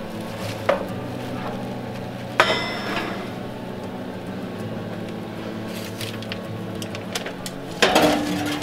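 Metal roasting pan clanking as it comes out of an RV oven and is set down on the stove's metal grate, one sharp clank with a short ring about two and a half seconds in. Near the end comes a second, longer clatter of metal and foil as a foil-covered pan is pulled from the oven.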